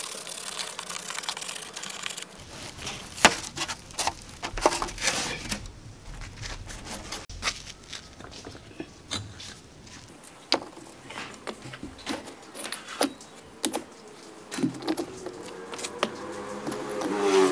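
Hand work with hard objects: a run of irregular sharp clicks, taps and scrapes, as of tools and hard building materials being handled. Some ringing comes in near the end.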